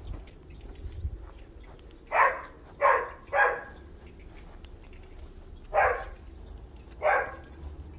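A dog barking five times: three quick barks about two seconds in, then two more near the end. Under them a small bird chirps steadily, a short high note two or three times a second.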